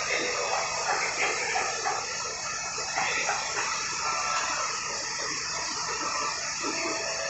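Steady hissing rush of airport noise, heard through terminal glass: jet airliners running on the apron, with no single event standing out.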